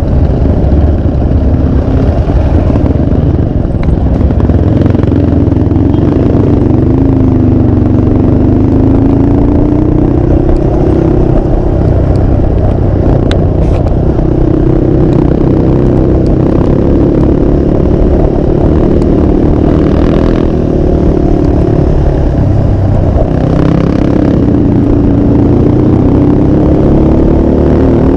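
Motorcycle engine running at an easy cruise, its pitch rising and falling gently with light throttle, under a heavy low rumble of wind on the microphone.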